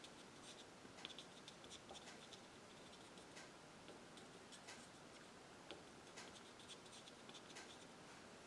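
Faint, irregular tap-tap and swirl noise of a soft pastel stick dabbed, pushed and twisted on pastel paper.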